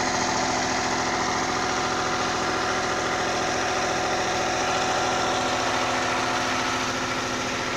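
An 18 kVA diesel generator running steadily at a constant engine speed, with an even, rapid firing pulse.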